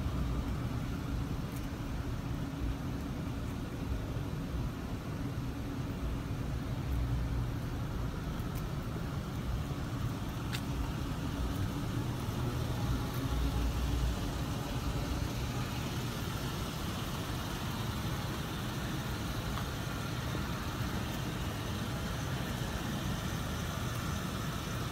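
2015 Dodge Charger's 3.6-litre Pentastar V6 idling steadily.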